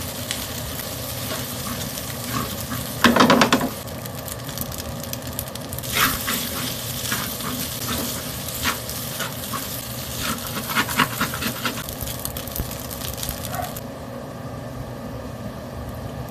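Fried rice sizzling in a metal wok while a spatula stirs and tosses it, scraping and clattering against the pan, loudest about three seconds in. The stirring and sizzle die down about two seconds before the end, leaving a steady hum.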